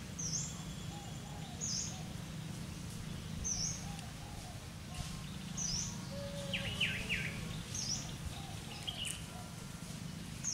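Birds calling: one repeats a short, high call about every two seconds, with scattered lower chirps and a few quick falling calls in the middle, over a steady low hum.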